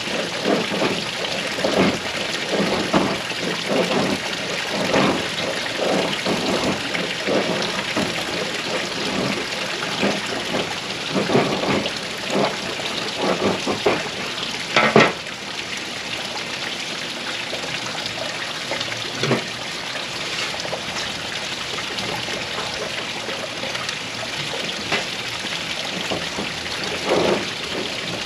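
Knife blade shaving thin curls off a wooden stick to make a feather stick: a run of short scraping strokes, about one every second or so, with one sharper stroke about halfway through, over a steady background hiss.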